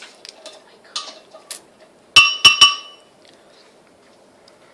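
A utensil clinking in a batter bowl: a few light taps, then three sharp ringing clinks in quick succession about two seconds in.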